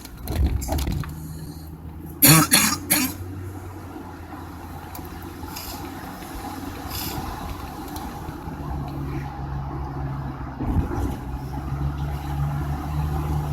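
Car engine and road noise heard from inside the cabin while driving, a steady low hum that swells again in the last few seconds. A brief loud burst about two seconds in.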